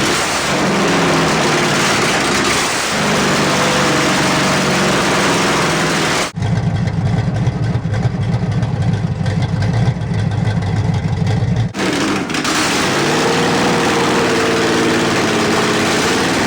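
1978 Camaro Z28's small-block V8 running and revving, in three edited clips. The sound cuts abruptly about six seconds in and again about twelve seconds in, and the middle clip is deeper with less high end.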